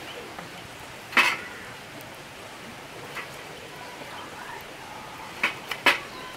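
Steel fire tongs clacking against split firewood and a metal fire stand while wood is moved on a small campfire: a sharp clack about a second in, a lighter one around three seconds, and a quick cluster of three near the end.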